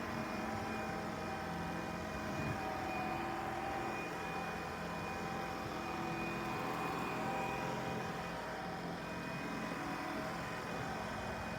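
Shark Stratos cordless stick vacuum running at a steady speed: a constant motor hum with a thin high whine over it.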